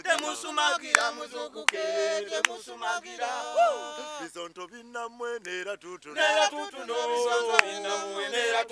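A small group of men singing a cappella in harmony, their voices holding and sliding between notes, with a few sharp clicks along the way.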